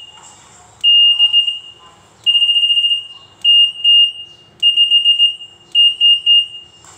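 Buzzer on a Fujika FJ18A walk-through metal detector gate main board sounding a high-pitched alarm tone about six times, each beep about a second long with short gaps. Some beeps are held steady and some are broken into quick pulses as the gate's alarm tone types are stepped through.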